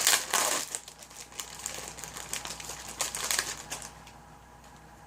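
Packaging crinkling and rustling as socks are handled and taken out. It is loudest in the first second, with scattered crackles, and stops about four seconds in.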